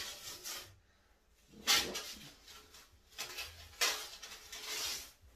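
Masking tape being peeled off wall tiles along a freshly siliconed joint, in four separate noisy pulls, the longest about a second, near the end.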